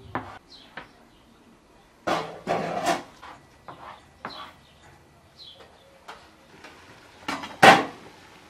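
Serrated knife cutting through a thin rolled dough sheet on a wooden board, the blade scraping and knocking against the wood in a few short strokes. Near the end comes a louder metallic clank of an aluminium pot lid being lifted.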